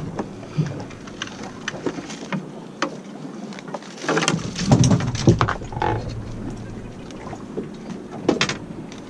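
Scattered knocks, taps and rustling as a landing net holding a caught bonito is handled on a small boat's deck. A louder cluster of knocks comes about four to five seconds in, with a few more clicks near the end.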